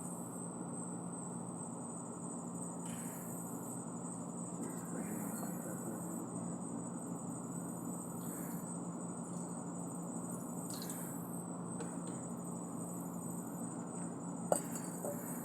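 Steady background hum and hiss with a constant high-pitched whine over it, and a single sharp click near the end.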